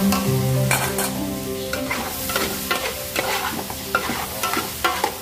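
A metal spoon stirring chickpeas and sliced onions in a large aluminium pot, frying and sizzling, with irregular clinks and scrapes of the spoon against the pot.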